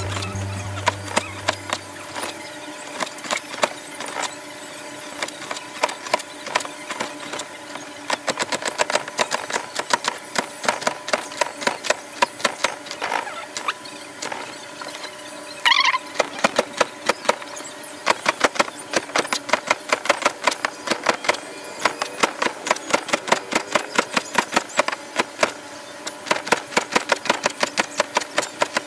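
Kitchen knife slicing bitter gourd thinly on a cutting board: a fast, steady run of sharp taps as the blade strikes the board, sparser at first and then quick and continuous. A brief high squeak comes about halfway through.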